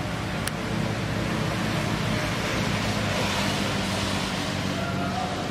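Steady road traffic noise: the low, even hum of a vehicle engine running with a wash of road noise, swelling slightly in the middle.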